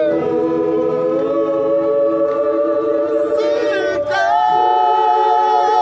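Gospel choir singing a cappella in long held chords. About four seconds in, the harmony moves to a new chord with a higher top note, which is held.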